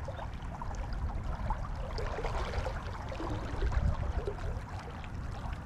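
Wind buffeting the microphone in an uneven low rumble, over the steady rush of river water, with a few faint ticks.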